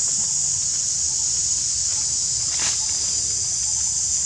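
Steady, high-pitched drone of insects, with one faint click a little past halfway.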